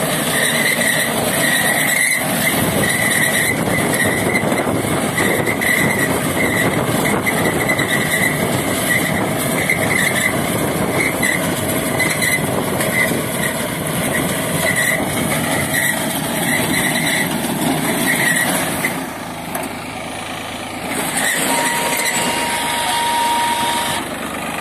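New Holland 3230 tractor's three-cylinder diesel running under load while its red front-mounted reaper cuts dry crop, with a steady mechanical clatter and a high squeak repeating about twice a second. The noise drops somewhat late on, and a short steady tone sounds near the end.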